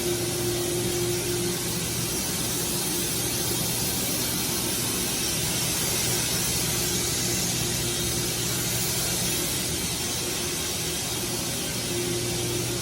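Steady, even hiss with a low hum beneath it, and a faint steady tone that sounds for the first second or so and again near the end.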